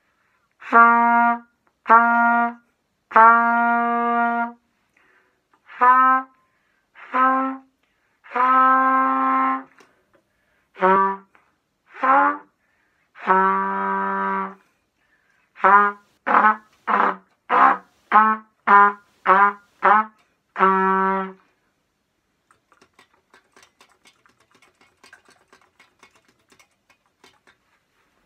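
Trumpet warm-up: separate played notes with pauses between, the first three on one pitch and some held for a second or more, then a run of about eight quick short notes ending on a longer low one. After the playing stops there are only a few faint clicks.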